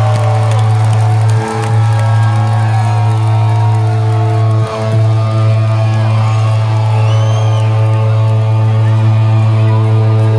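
Loud live rock music through a concert PA: a held low chord with steady tones above it, dipping briefly twice, while the crowd whoops and whistles over it.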